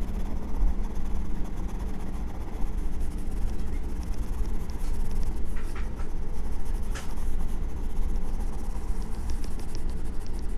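Graphite pencil scratching and shading on sketch paper, with short strokes heard as faint scratches, over a steady low rumble.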